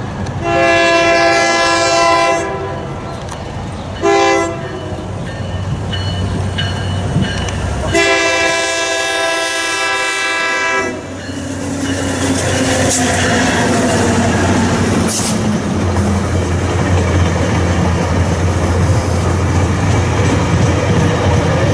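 Tri-Rail commuter train's locomotive air horn sounding a chord: a long blast, a short one, then another long blast. Then the train rolls past close by, a steady low rumble with wheel clatter on the rails.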